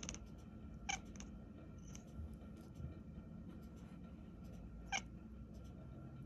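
Domestic cat giving brief, faint calls: one at the start, another about a second in and a third about five seconds in.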